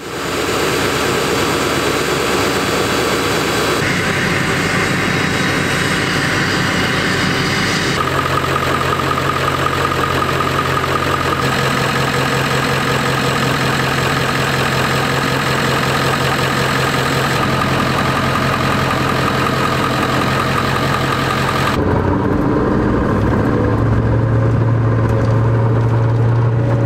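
Ford 7.3 L Powerstroke turbo-diesel in a 1997 F-350 pickup idling steadily. The sound changes abruptly every few seconds where separate clips are cut together, and a deeper hum comes in near the end.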